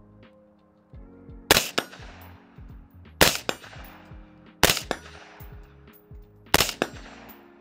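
Four suppressed .223 Remington rifle shots from an AR-15 fitted with a Silencer Co. Omega 300 suppressor, fired one by one about one and a half to two seconds apart. Each shot has a tail that dies away.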